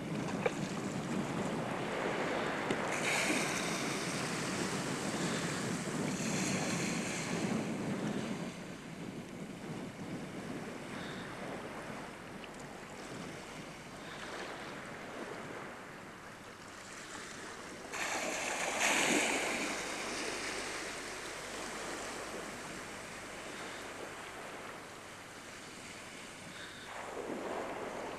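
Sea surf washing and breaking, with wind on the microphone; the surf swells louder for the first several seconds and again about two-thirds of the way through.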